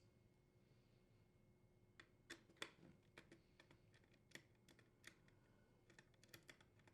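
Faint, scattered small clicks from a 1/4-inch nut driver unthreading the upper screws that hold a dishwasher door hinge to the frame, starting about two seconds in with the loudest a little after that.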